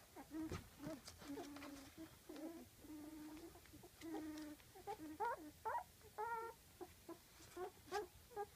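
Young golden retriever puppies whining and squeaking: a string of short cries, some held on one note and some sliding up and down.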